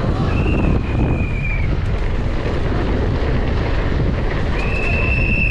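Wind buffeting the microphone during a downhill mountain bike race run, a steady low rumble. A high, steady squeal cuts in twice, for about a second and a half near the start and again near the end.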